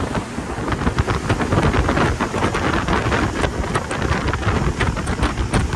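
Wind buffeting the microphone aboard a boat on open water: a dense, rumbling rush broken by rapid crackles.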